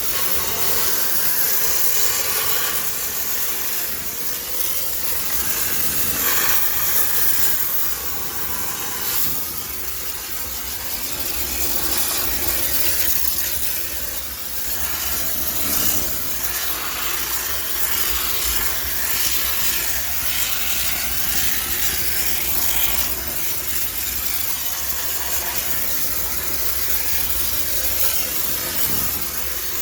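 High-pressure steam cleaner spraying steam into a washing machine to sterilize it, a continuous hiss that swells and eases in strength.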